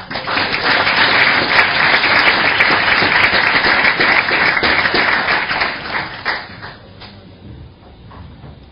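Applause from a crowd clapping, dense and loud, dying away about six to seven seconds in.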